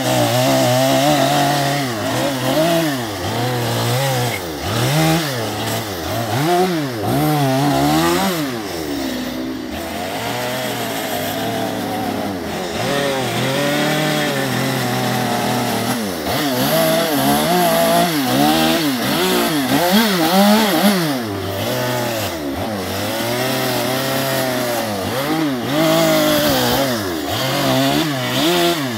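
Stihl gas chainsaw carving western red cedar, revving up and down again and again as it makes short detailing cuts, so its engine pitch keeps rising and falling.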